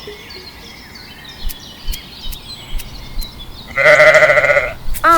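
Bleating of a small farm animal: one loud, wavering bleat about a second long near the end, with a second bleat starting just before the end. Faint bird chirps and small clicks come before it.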